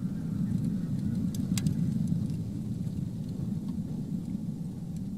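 Steady low rumble of a Proton-M rocket's engines in flight, with a few faint clicks about one and a half seconds in.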